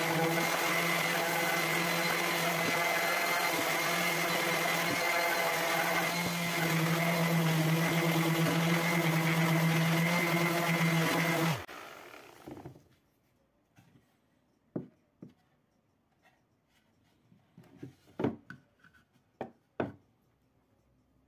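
Random orbital sander running steadily against a wooden block, switched off about eleven and a half seconds in and winding down with a falling pitch. A few short light knocks follow near the end.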